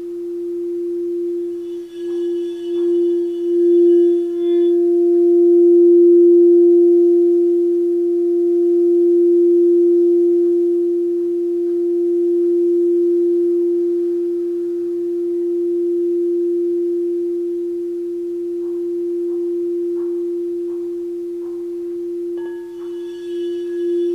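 Ruby Aqua Aura Gold crystal alchemy singing bowl, note F tuned to 432 Hz, ringing with one steady low tone that swells and eases in slow waves. A couple of seconds in and again near the end, a brighter shimmer of high overtones with light ticks comes in as the bowl is played again.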